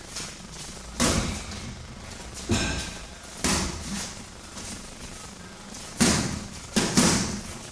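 Boxing gloves punching focus mitts held by a trainer. Several sharp smacks land at irregular spacing, with a quick pair near the end.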